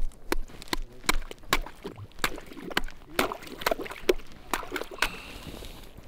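Footsteps crunching through snow and slush on lake ice, a brisk walk of about two or three steps a second.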